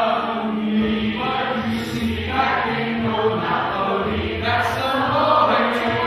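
Singing with musical accompaniment, with long held notes.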